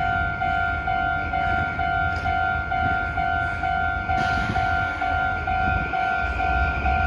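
Japanese level-crossing alarm ringing, a repeated electronic bell tone at about two strokes a second, warning of a train movement. A steady low rumble runs beneath it.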